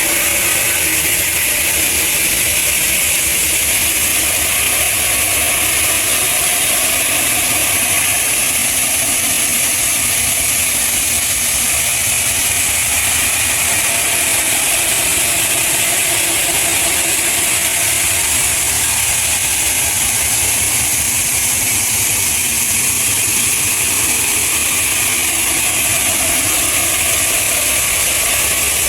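Heavy machinery running steadily, with a strong high hiss over a low, even rumble and no change in load.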